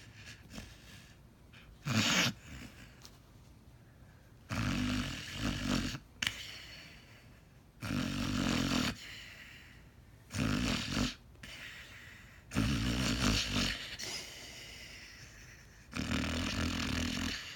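A sleeping dog snoring: a short snort about two seconds in, then five snores of a second or so each, coming every two to four seconds.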